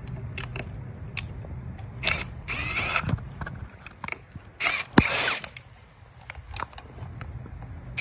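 Clicks and scraping of the wheelchair controller's plastic cap being worked open, with two longer scrapes and one sharp click about five seconds in.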